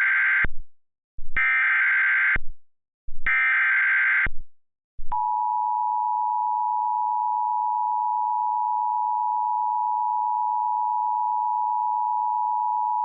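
Emergency Alert System SAME header: three bursts of warbling digital data tones, about a second each, the first already under way. Then the two-tone EAS attention signal starts about five seconds in and holds steady for about eight seconds, announcing a severe thunderstorm warning.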